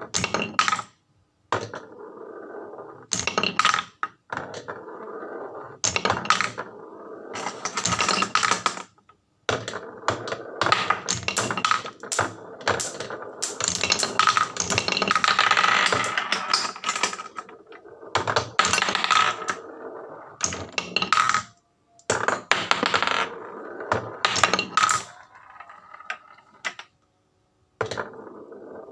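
Marbles rolling and clacking down wooden marble-run tracks: a steady rolling rattle dotted with sharp clicks and knocks, broken a few times by sudden stops.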